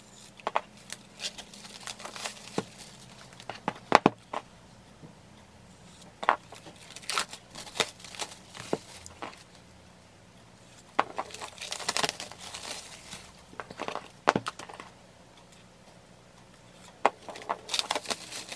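Plastic shrink wrap being torn and peeled off a boxed CD album: irregular crinkling and crackling in clusters, with a few sharper snaps, the loudest about four seconds in.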